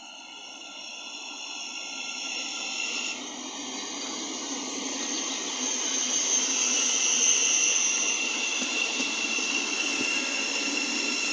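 Thameslink Class 700 electric multiple unit (Siemens Desiro City) pulling into the platform to stop, growing steadily louder as it draws alongside. There is a rush of wheels and running gear with a steady high whine over it.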